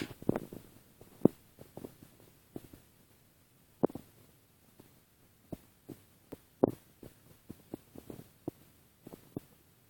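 Chihuahua snoring in deep sleep: short, soft snore sounds at irregular intervals, the strongest about four and seven seconds in.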